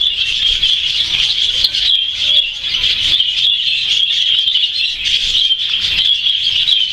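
A flock of budgerigars (budgies) chattering and chirping together in a dense, unbroken high twitter.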